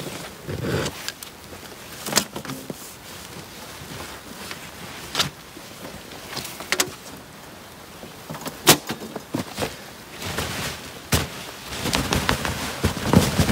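Snow-covered poly tarp of a lavvu shelter being handled and tugged by hand: fabric rustling and scraping, with scattered sharp clicks and knocks. The rustling is heavier about half a second in and again near the end.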